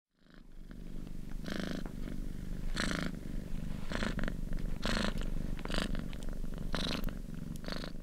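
Domestic cat purring: a steady low rumble that swells with each breath, about once a second.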